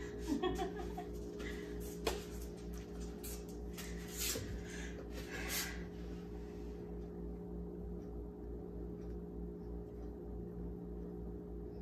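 Steady low electrical hum of a running kitchen range, with a single click about two seconds in and a few faint rustles.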